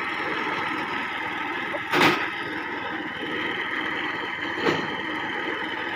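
Engine-driven truck-mounted cassava conveyor loader running steadily, with a loud thump about two seconds in and a smaller one near the end.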